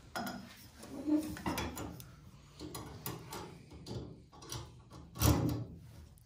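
Irregular metallic clinks and knocks of hand tools and car parts being handled as a part is refitted and its nut put back on, the loudest knock about five seconds in.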